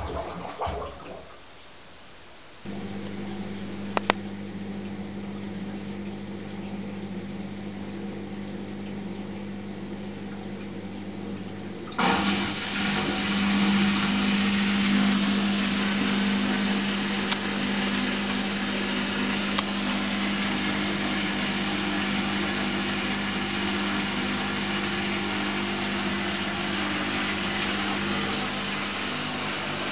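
Candy GrandO Plus washing machine running its wool cycle. A steady electric hum starts a few seconds in, a single click follows, and about twelve seconds in a louder steady rushing sound starts suddenly over the hum.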